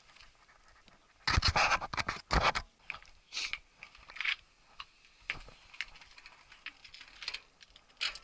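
A person breathing hard while scrambling down rocks with a mountain bike, with scuffs and scrapes of shoes, clothing and bike against rock. There are two loud, noisy bursts about one and a half and two and a half seconds in, then lighter, scattered scrapes.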